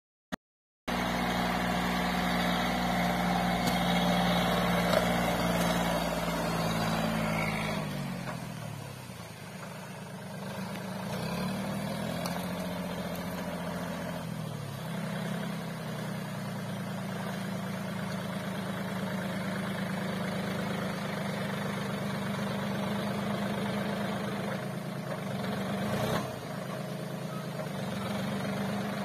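John Deere compact tractor's diesel engine labouring in mud. Its pitch sags about eight seconds in as the engine bogs down, picks up and drops again around fifteen seconds, then runs steadily under load.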